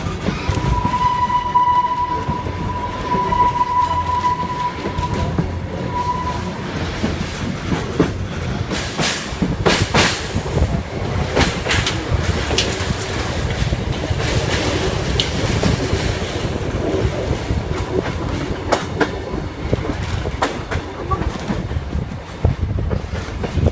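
Passenger train on the Kuranda Scenic Railway running along the track, with a steady rumble and clickety-clack of wheels over the rails. A high, steady squeal sounds through roughly the first six seconds, and sharp knocks come and go further on.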